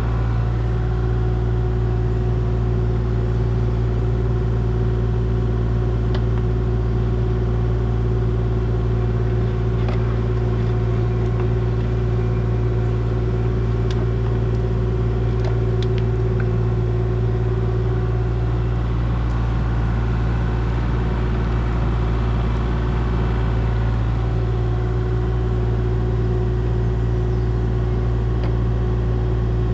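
A heavy engine running steadily, a constant low drone with an even hum and a few faint clicks, not revving up or down.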